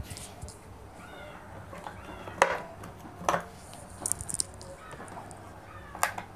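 Scattered light metallic clicks and knocks as a sewing machine's steel slide plate and needle plate are pushed loose and lifted off by hand. A faint high call sounds in the background about a second in.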